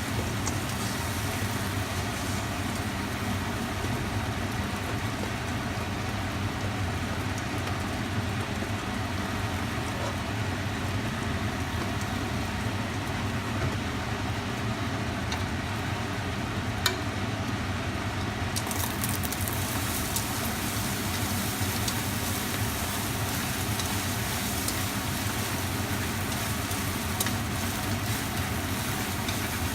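Stir-fry sizzling in a pan over a steady low roar, with a few sharp clicks, the loudest about 17 seconds in.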